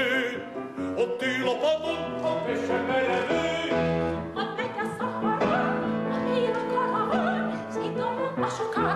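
An operetta number: a classically trained voice sings with wide vibrato over an orchestral accompaniment with strings.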